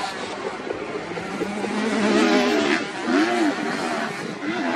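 Motocross bike engines revving on the track, the pitch rising and falling over and over with throttle and gear changes. The engines get louder about two seconds in.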